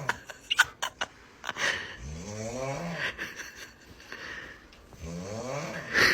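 A person snoring: two drawn-out, pitched snores about three seconds apart, each rising then falling in tone, with a few sharp clicks between them near the start.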